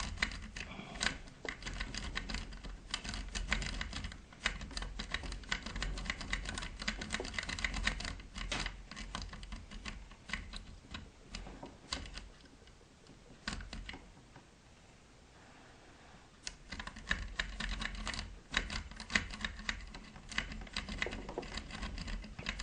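Bogota rake being worked in and out of an Abus Diskus 24 padlock's keyway under very light tension: rapid, irregular metallic clicking as the rake scrapes over the pins. The clicking thins out for a few seconds about halfway through, then picks up again.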